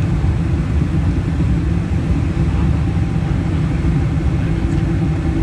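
Steady cabin noise in a Boeing 747-400 in flight, heard from a window seat over the wing: the low, even drone of its Pratt & Whitney PW4056 turbofans mixed with the rush of air past the fuselage.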